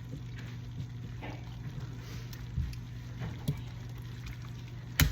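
A pot of pasta water bubbling at a boil, under a steady low hum, with a few light clicks and one sharp clack near the end.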